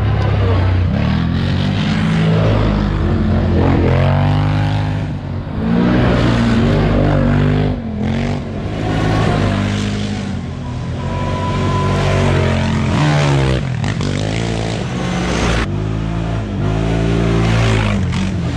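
ATV engines revving hard, the pitch climbing and dropping over and over as quads ride past one after another.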